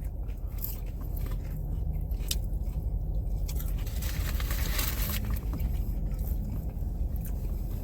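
Chewing and crunching on a fried chicken sandwich, with scattered small clicks and scrapes and a brief rustle about four seconds in, over a steady low hum.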